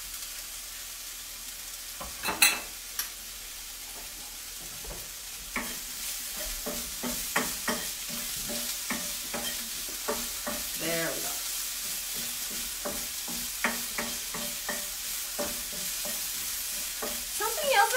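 Food sizzling in a frying pan. A sharp clatter comes a couple of seconds in, and from about six seconds in a wooden spatula scrapes and knocks against the pan as the food is stirred, while the sizzle gets louder.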